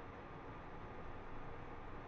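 Faint steady background hiss of room tone, with no distinct sounds standing out.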